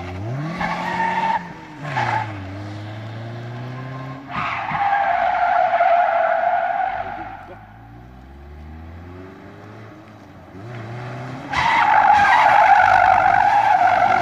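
Car doing donuts on asphalt, its engine revving up and down while the tyres screech in bursts: twice briefly in the first two seconds, a long squeal from about four to seven seconds in, and another long one near the end.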